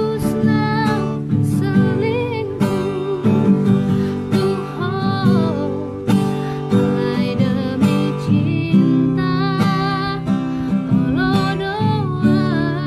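A woman singing a Batak pop ballad with vibrato over strummed acoustic guitar.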